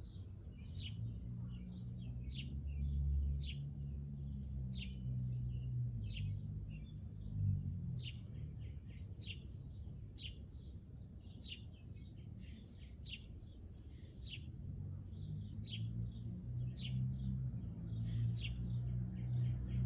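Backyard birds chirping, many short sharp chirps a second from more than one bird, over a low steady hum.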